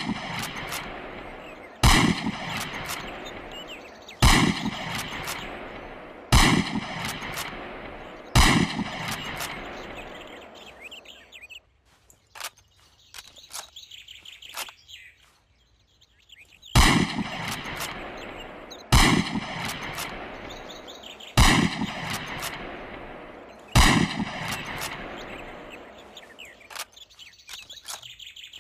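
Springfield M1903 bolt-action rifle firing single shots about every two seconds, each crack followed by a long echoing tail. Four shots, then a pause of about five seconds with small clicks and high chirping, then four more shots.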